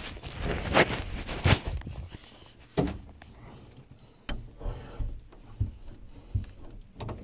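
Rustling and a series of knocks and thumps from a phone being handled and covered, loudest in a quick cluster at the start, then single thumps about once a second.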